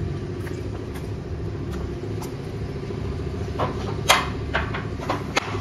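Metal house gate being shut and its sliding latch bolt worked by hand: a few sharp metallic clanks and clicks from about three and a half seconds in, the loudest just after four seconds. A steady low hum runs underneath.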